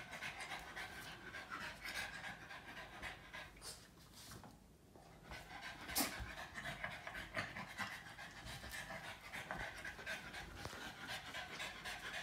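Boston terrier panting rapidly and excitedly at close range, pausing briefly about halfway through, with one sharp click a little after.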